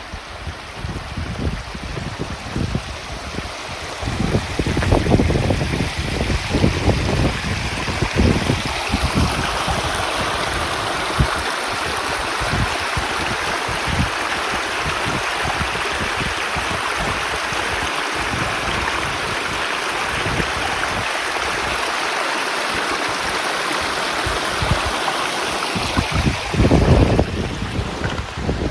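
Mountain stream rushing steadily, with wind buffeting the microphone in gusts during the first several seconds and again near the end.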